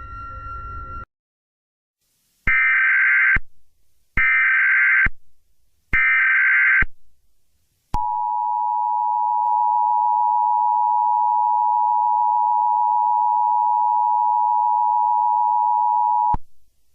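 Emergency Alert System alert tones. Music ends about a second in, then come three short bursts of warbling SAME header data, each under a second and spaced evenly. These are followed by the steady two-tone EAS attention signal, held for about eight seconds.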